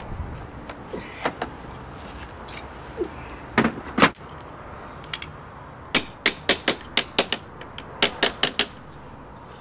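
Hand tool tapping on sheet lead while fitting chimney step flashing: a few scattered knocks, then two quick runs of five or six sharp taps, about four a second.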